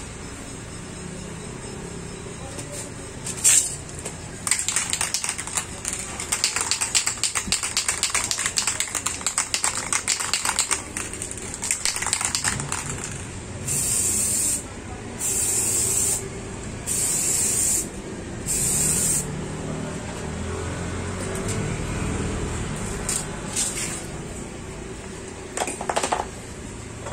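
Aerosol spray paint can shaken hard, its mixing ball rattling fast for about eight seconds, then four short bursts of spray hissing from the nozzle, each about a second long. A sharp click comes just before the shaking.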